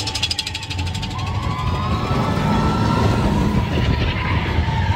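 Big Thunder Mountain Railroad mine-train roller coaster running along its track: a loud low rumble with wind buffeting the microphone, a brief rapid clatter at the very start, and a steady high squeal that rises slightly about a second in and holds.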